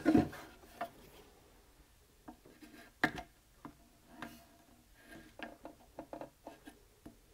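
Handling noise of a rusty metal fuel tank being turned over in the hands: scattered light clicks, taps and rubbing, with a sharper click about three seconds in.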